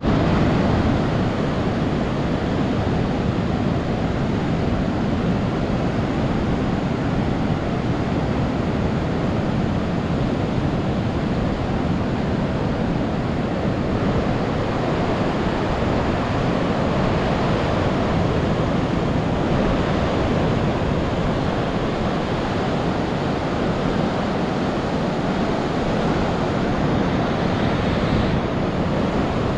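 Ocean surf breaking steadily offshore, a continuous even rush of waves, mixed with wind noise on the microphone.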